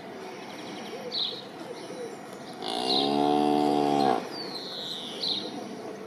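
A cow moos once, a single drawn-out moo lasting about a second and a half, starting a little before the middle. Short high bird chirps repeat every second or two.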